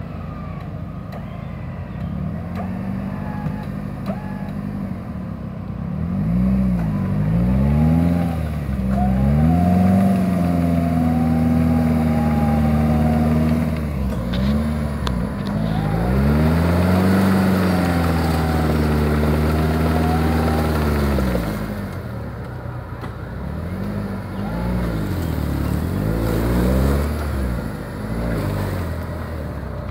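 Off-road 4x4's engine revving hard in long rising and falling surges under load as the vehicle works its way out of a deep mud-hole.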